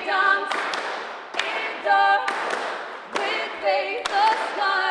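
Live song: voices holding sung notes in harmony, with sharp percussive strokes landing among them.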